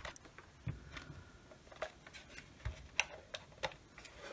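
Scattered light clicks and taps of a small plastic LED projector casing being handled and turned over by hand.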